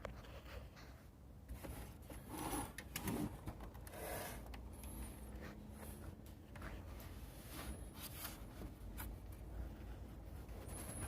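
Light, irregular rubbing and scraping with scattered small clicks, like hands handling objects, over a low steady hum.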